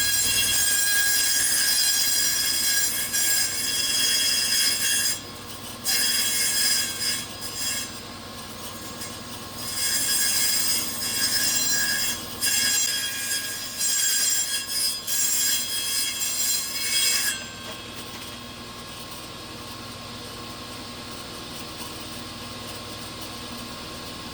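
Table saw ripping thin strips from a board: a loud, high-pitched whine while the blade is in the wood, with several short breaks. About seventeen seconds in the cutting stops and the saw runs on more quietly.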